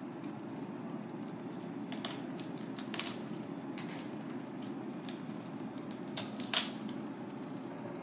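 Kitchen knife cutting through a crab's shell and leg joints on a plastic cutting board: scattered sharp clicks and cracks of shell, with two louder cracks about two-thirds of the way in, over a steady low background hum.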